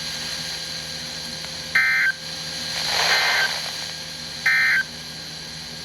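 Emergency Alert System end-of-message tones: three short bursts of warbling digital SAME data, each under half a second, about a second and a quarter apart, closing the tornado warning broadcast. A swell of hiss rises and falls around the second burst.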